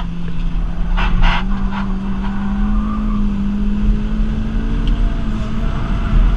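Rotrex-supercharged Toyota 2ZZ four-cylinder engine heard from inside the Celica's cabin on track, its note climbing slowly and steadily as the car accelerates, over a low road rumble. A few short clicks sound about a second in.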